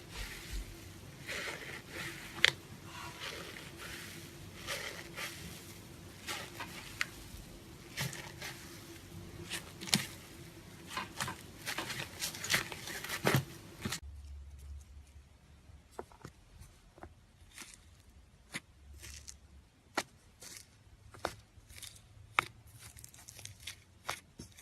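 Slime being squeezed and poked by hand, making sticky clicks and crackles. They come thick and fast at first, then thin out suddenly past the middle to sparse single pops.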